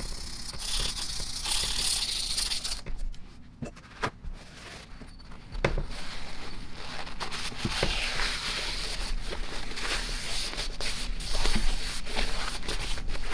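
Metal end plate from an air impact wrench's motor being scrubbed by hand to remove rust, a steady rough scraping. The rubbing drops back about three seconds in, with a couple of light knocks, and resumes near six seconds.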